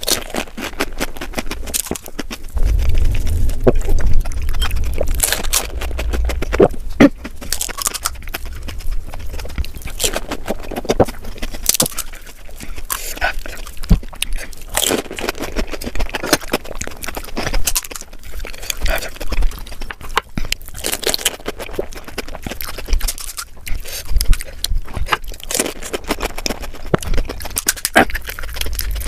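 Close-miked crunching and chewing of panipuri: crisp fried puri shells cracking in the mouth as they are bitten, as a run of many sharp crackles with wet mouth sounds. The eating is heaviest and loudest a few seconds in.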